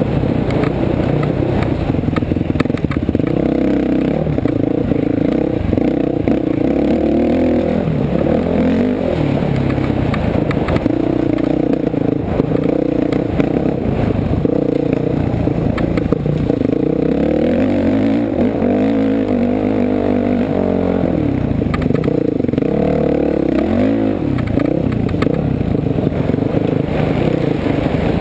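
Honda 450 dirt bike's single-cylinder four-stroke engine running hard, its revs rising and falling over and over with the throttle, heard from an onboard action camera. Rattling and knocking from the bike run through it.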